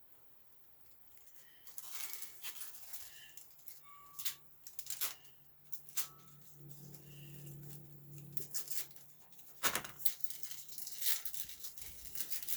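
Small clicks, taps and rustling of a plastic parts package being handled and opened by hand, with a sharper knock about ten seconds in.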